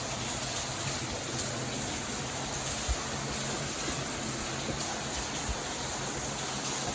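Loud, steady rush of water falling and running inside a cave passage.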